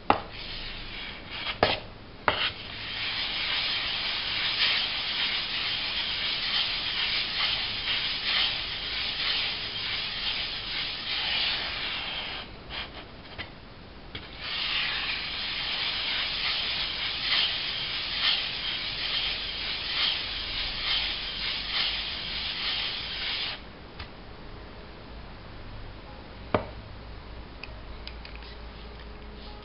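JCK Special 1000/4000 combination water stone scrubbed back and forth on a flat lapping surface to flatten its face: a steady gritty rasping that pauses for about two seconds midway and stops about three quarters of the way through. A couple of clicks as the stone is set down come near the start, and a single knock comes near the end.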